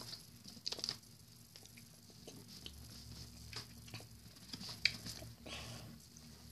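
Faint chewing and mouth noises from eating cheese curds: soft, scattered clicks and squishes, a little louder about five seconds in.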